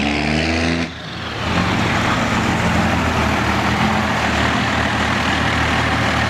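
Dodge Ram's Cummins diesel engine running at low speed as the pickup rolls past and pulls up alongside another truck, a steady low drone. There is a brief edit cut about a second in.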